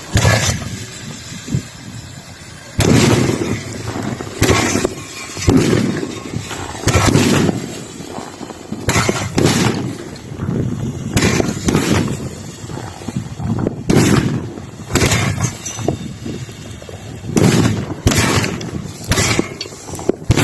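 A firework mortar rack firing shot after shot: about sixteen sharp bangs, one every second or so, each with a short low rumble after it.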